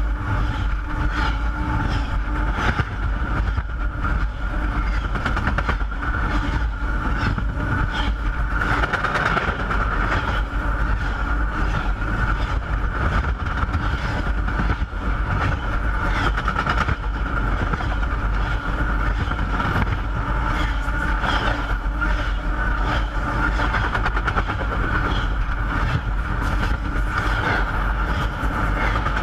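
Train rolling over the tracks right at the microphone: a continuous loud rumble and rattle of wheels on rail, with rapid clicking and a steady high ring through the whole passage.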